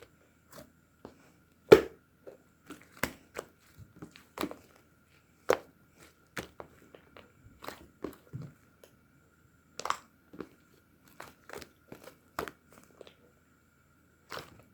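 Slime being squeezed and pressed by hand, giving irregular sharp clicks and crackling pops, about one or two a second. A faint steady high tone runs underneath.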